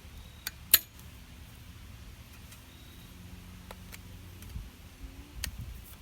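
A few sharp clicks and taps of small hard pieces being handled and set down, the loudest about three-quarters of a second in, over a faint low background hum.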